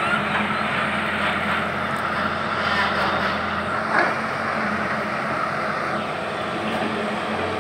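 Diesel engine of a tracked hydraulic excavator running steadily under work, with a single knock about four seconds in.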